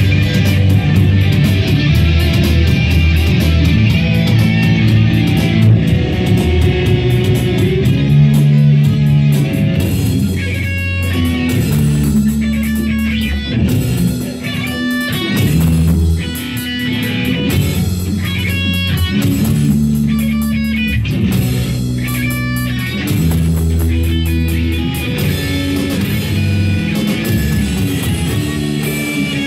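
A live rock band playing in a rehearsal room: electric guitar and bass guitar over an electronic drum kit. About ten seconds in, a higher repeating melodic figure comes in over the low riff.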